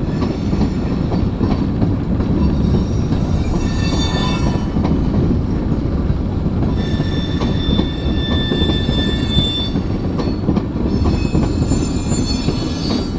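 Freight train of tank cars and covered hoppers rolling past, a steady low rumble of wheels on rail. High-pitched wheel squeal comes and goes three times, the longest a steady squeal in the middle.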